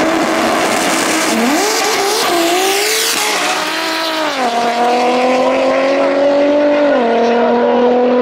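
Turbocharged Nissan RB30 straight-six in a VW Scirocco drag car, held at steady revs and then launching at full throttle with some tyre squeal. The engine note climbs and drops sharply twice, about four and a half and seven seconds in, as it upshifts and pulls again.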